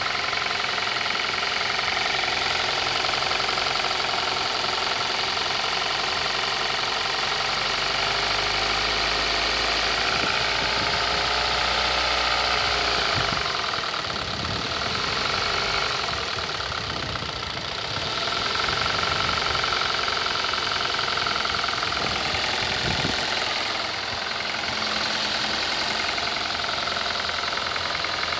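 2018 Kia Rio's petrol four-cylinder engine running at idle with a knock coming from inside the engine, the fault the owner is recording. The engine sound is steady, with a few brief dips in level about halfway through.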